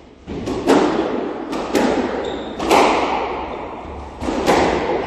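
Squash rally: the ball cracks off rackets and the walls about seven times, often two hits in quick succession, each ringing in the enclosed court. A brief high squeak a little after two seconds, typical of a shoe sliding on the wooden floor.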